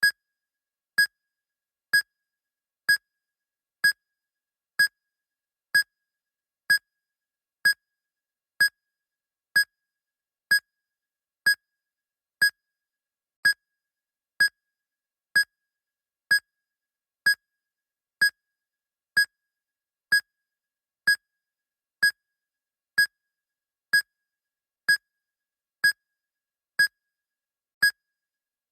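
Medical heart monitor beeping in time with the pulse: short, identical high beeps a little under a second apart, steady and regular, about sixty a minute, with silence between them.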